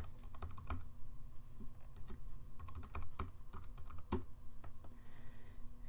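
Typing on a computer keyboard: irregular keystroke clicks as an email address is entered.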